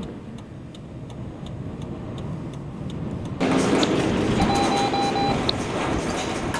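Strong wind buffeting the microphone over a low rumble, with faint regular ticking. About three and a half seconds in, the wind noise jumps suddenly louder, and a short run of electronic beeps sounds about a second later.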